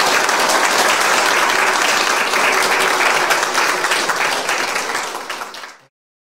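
Audience applauding together: dense, steady clapping that cuts off abruptly near the end.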